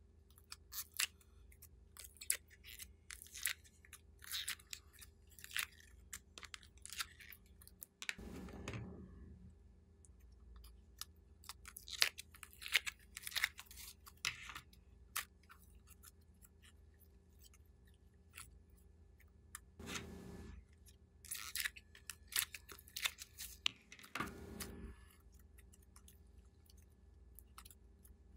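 Sticky slime being peeled from a plastic mold and squeezed by hand, giving many small crackles and pops, with three longer, duller sounds among them.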